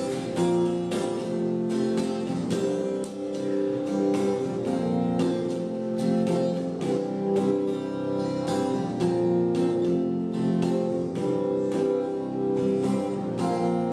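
Guitar strumming chords in a steady rhythm, an instrumental passage with no voice between sung lines of a solo song.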